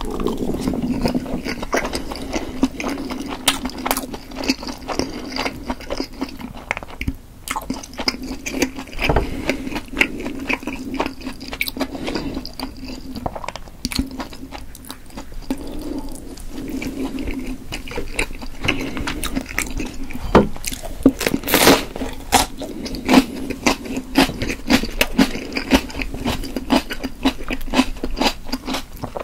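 Close-miked chewing of chewy steamed potato dumplings: wet mouth smacks and many short clicks, with a low steady hum underneath and one sharper, louder click about two-thirds of the way through.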